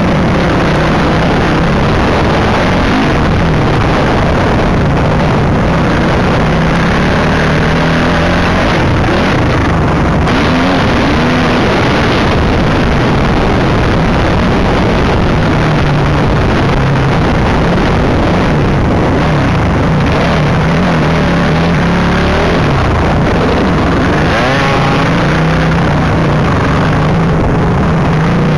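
Dirt bike engine running loud and continuously while riding an off-road trail, its pitch rising and falling with the throttle, heard through a helmet-mounted camera.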